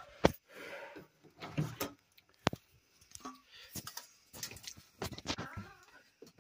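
Scattered sharp knocks and clicks, as of things being handled and bumped in a shed. The loudest knock comes just after the start and another sharp one about two and a half seconds in, with smaller clicks between and after.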